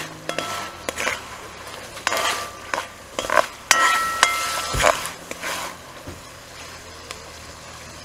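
Metal spoon stirring vegetables frying in an aluminium kazan, scraping and knocking against the pot so that it rings briefly, over a sizzle. The stirring stops about six seconds in, leaving the sizzle.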